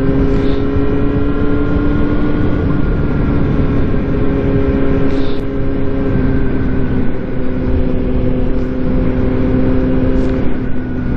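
Yamaha R1 sport bike's inline-four engine running at a steady cruise, heard from on board with a strong rush of wind noise underneath.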